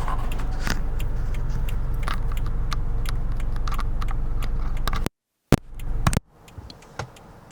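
Steady low rumble of a car cabin at idle, picked up by the camera's built-in mic, with light handling clicks. About five seconds in the audio cuts out completely as a shotgun mic's plug goes into the camera's mic jack. A pop and a short burst of rumble follow, then a much quieter background as the camera switches to the shotgun mic.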